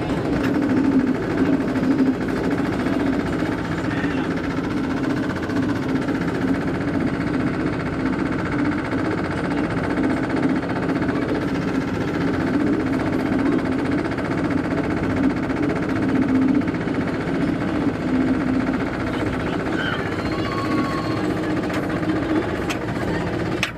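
Roller coaster chain lift running steadily as the train climbs the lift hill, a continuous mechanical clatter and hum.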